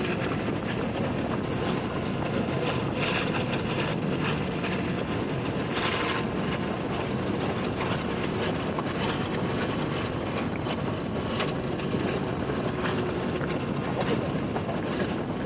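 Motorcycle riding, its engine running under a dense rush of wind noise on the camera's microphone, with frequent short buffeting crackles.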